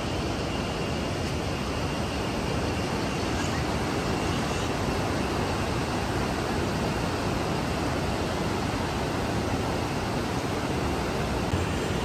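Steady rushing of a river running over rocks, an even wash of water noise.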